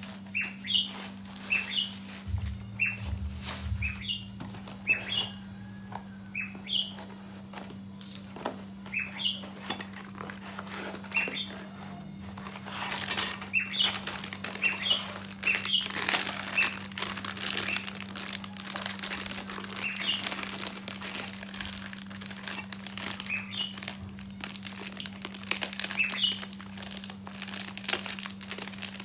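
Plastic packaging crinkling and rustling as the parcel is unwrapped, busier from about halfway through, with a small bird chirping in short repeated calls and a steady low hum.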